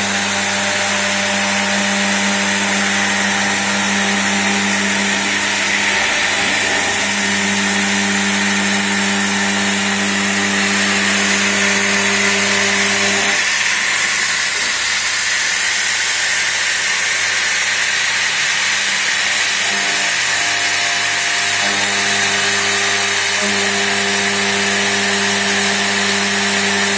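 CNC machine cutting: steady machine noise with a cutting hiss and a set of humming tones, which drop away for about six seconds midway and then come back.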